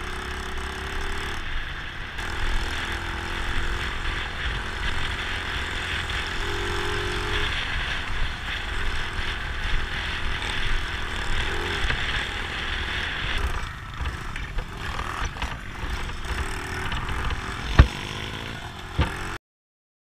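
Dirt bike being ridden, heard from a helmet-mounted camera: the engine runs steadily under a rushing wind noise on the microphone, its pitch shifting a little now and then. A single sharp knock comes near the end, just before the sound cuts off suddenly.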